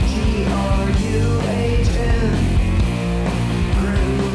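Grunge-style rock song with guitar and a steady beat.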